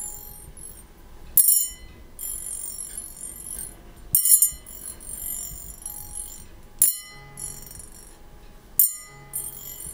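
A long metal tuning fork is struck four times, every two to three seconds. Each strike gives a sharp, bright ring with high overtones that fades over a second or two. The fork's vibration is passed into the ear through a goose-feather ear pick.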